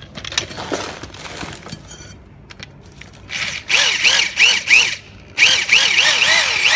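Heavy-duty drill with a hole saw bit boring out the core of a worn rubber suspension bushing. The drilling starts about three seconds in and runs in two bursts with a short break, its pitch rising and falling about three times a second as the bit bites into the rubber.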